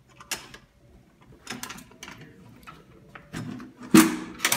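Metal clicks and clanks of a locked metal box being worked open by hand, as its combination lock and latch are handled. There are scattered small clicks, then a sharp metal clank about four seconds in, followed by a couple more knocks.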